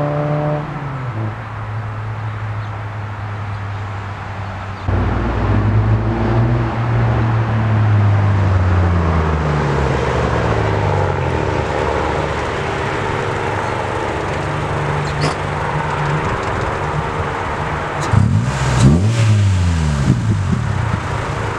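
1998 Honda Civic EX's 1.6-litre D16Y8 four-cylinder engine heard through an Invidia N1 cat-back exhaust as the car drives. The engine note holds steady, jumps louder about five seconds in and falls in pitch as the revs drop. It then holds steady again and dips and climbs quickly near the end as the car pulls up close.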